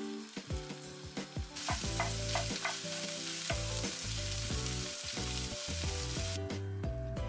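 Beaten eggs scrambling in a nonstick frying pan, sizzling, with a wooden spoon scraping and clicking against the pan as they are stirred. The sizzle grows louder about one and a half seconds in and falls away near the end.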